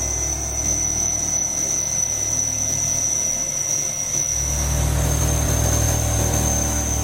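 CNC milling machine running a corn (roughing) end mill, with a steady high-pitched whine over a low machine hum. The hum drops away for about a second near the middle, then comes back.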